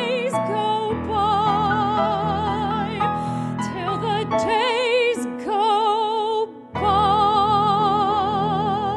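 A woman singing long sustained notes with wide vibrato, in a trained musical-theatre voice, over piano accompaniment. There is a short break for breath about six and a half seconds in, then a long held note.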